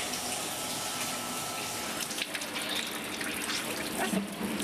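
Water running and spraying against stainless steel in a kitchen sink and cooking kettle. It hisses steadily at first, then turns uneven with a few small clatters.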